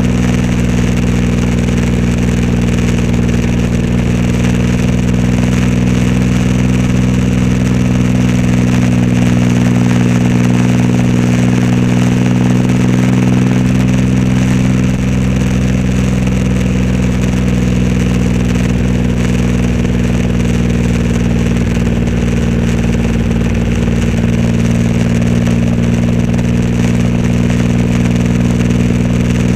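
Triumph Rocket 3 Roadster's 2.3-litre inline three-cylinder engine running through a custom exhaust, holding steady revs with an even, unchanging note.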